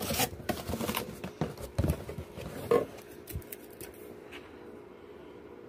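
Cardboard shipping box being pulled open and handled: rustling, scraping and knocking of the flaps and the canned-soup tray in quick irregular bursts over the first three seconds, then it quietens.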